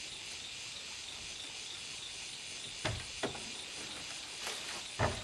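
Steady chorus of insects, a high hiss running throughout, with three short knocks: two about three seconds in and a louder one near the end.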